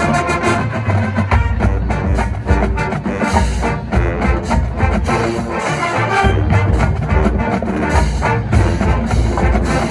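University marching band playing: brass sections sounding sustained chords over a drumline with snare and bass drum hits.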